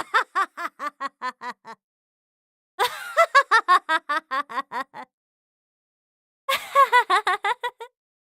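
A woman laughing in three separate bursts of quick, evenly spaced 'ha-ha' pulses, each burst lasting about one and a half to two seconds, with silence between them.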